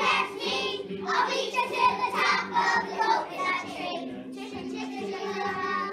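A group of young children singing a song together, a little softer in the last couple of seconds.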